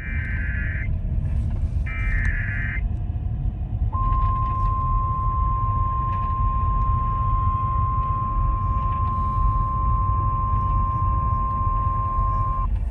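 NOAA Weather Radio alert: two short bursts of screechy SAME data-header tones, then the steady 1050 Hz warning alarm tone held for about nine seconds, signalling a warning about to be read. A steady low rumble runs underneath.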